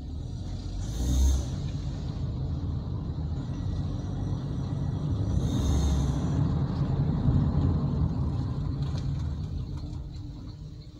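Mitsubishi Lancer driving slowly, heard from inside the cabin: engine and road rumble building as the car speeds up, then easing off as it slows near the end. Two short hisses, about a second in and again around six seconds in.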